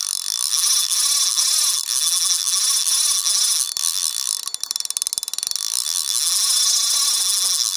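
A dense, high-pitched mechanical clicking and hissing texture with nothing deep in it, ticking rapidly around the middle and cutting off suddenly near the end.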